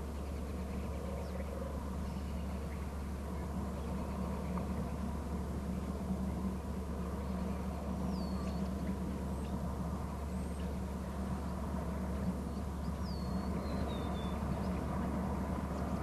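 A steady low hum under a constant background hiss, with two faint, short, high, falling bird calls about eight and thirteen seconds in.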